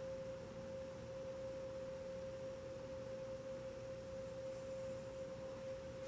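A steady pure tone held at one unchanging pitch, with faint background hiss.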